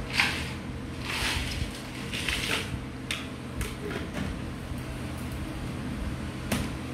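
Steady low hum of room tone, with a few short rustling noises in the first few seconds and a sharp click about six and a half seconds in.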